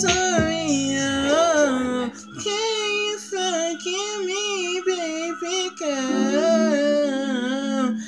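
A man singing in a high register, sliding and bending the pitch through long runs without clear words, over a steady held low backing note.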